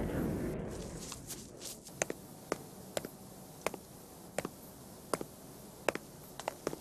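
Footsteps: crisp, evenly paced steps about one every three-quarters of a second, starting about two seconds in. A low rumble fades away over the first second or so.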